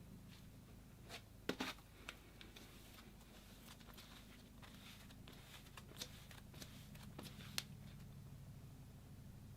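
Slime being handled by hand, making a few faint, short crackling and sticky clicking sounds, loudest a second and a half in, over a low steady hum.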